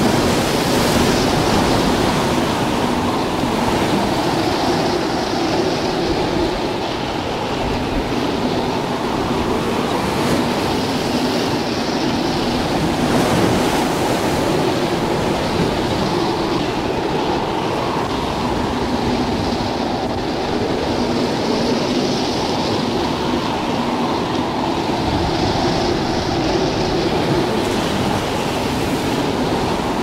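Hurricane-force storm wind blowing hard and without a break: a dense, heavy rush with a higher whistling hiss that swells and fades in gusts every few seconds.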